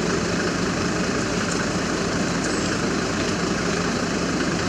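A steady machine-like hum and hiss with a constant low tone, unbroken and even in level, with two faint short bird chirps about one and a half and two and a half seconds in.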